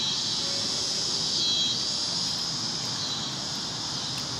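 Night-time outdoor ambience: a steady high hiss of insects over a low rumble of traffic.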